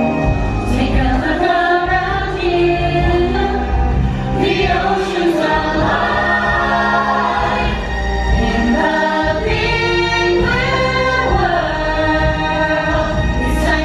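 Stage musical song: a chorus of voices singing together over a band accompaniment with a steady bass line.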